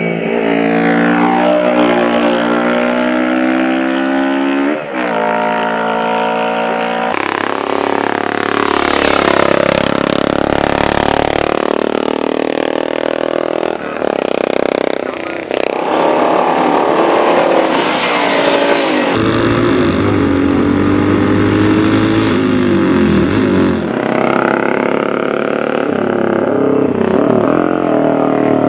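Racing motorcycle engines revving hard and passing, their pitch rising and falling through gear changes. The sound changes abruptly several times, where separate recordings are cut together.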